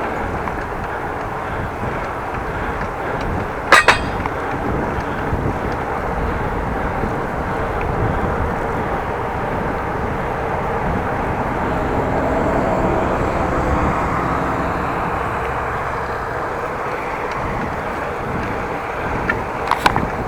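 Steady wind and tyre noise from riding a bicycle, with a sharp click about four seconds in and a few lighter clicks near the end.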